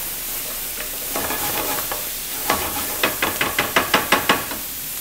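Stuffing vegetables sizzling steadily in a hot pan, with a quick run of stirring strokes, about five a second, starting about halfway through.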